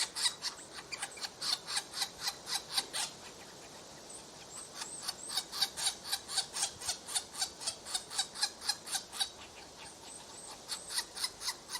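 Woodpecker calling: quick, short, high notes about four or five a second, in runs that stop twice for about a second.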